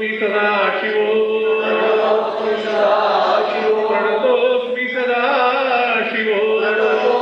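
Devotional chanting, sung voices in a slow melodic line over a steady held drone note.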